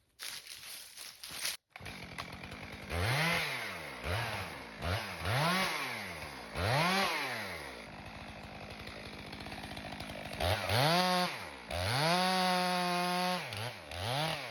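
Chainsaw engine revved up and down in a run of short blips, settling to a low idle, then held at high revs for about two seconds before more blips near the end.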